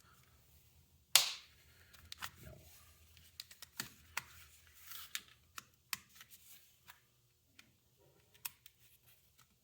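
Scattered small clicks and taps of tiny screws and a screwdriver against the plastic shell of a Nintendo 3DS XL being disassembled, with one louder click about a second in.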